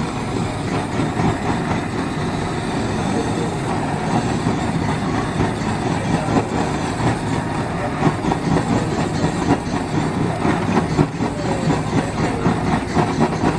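Handheld gas blowtorch burning steadily, a continuous rushing roar as its flame is played over squid on a wire grill rack.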